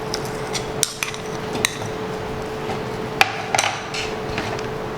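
Scattered light clicks and knocks as ingredients and utensils meet a mixer-grinder jar while the masala is loaded, over a steady hum.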